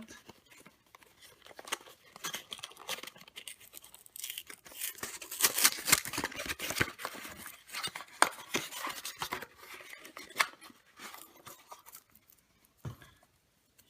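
A small cardboard box holding a chocolate surprise egg being opened by hand: rustling, tearing and crackling of the packaging, busiest in the middle and dying away near the end.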